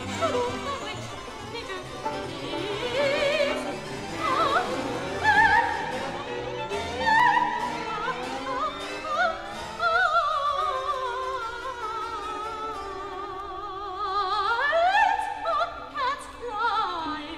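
Operatic soprano singing with wide vibrato over a small string ensemble with harpsichord, in a classical art-song setting. About three-quarters through, the pitch slides steeply upward and then sinks back down near the end.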